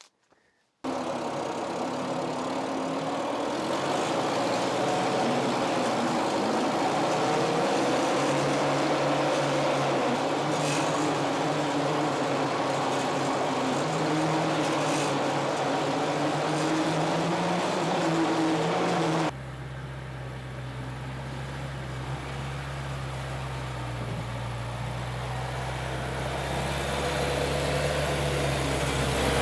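Bobcat 610 skid-steer loader's engine running, its pitch rising and falling a little as the machine is worked. About two-thirds of the way through it drops abruptly to a quieter, steadier, deeper engine note.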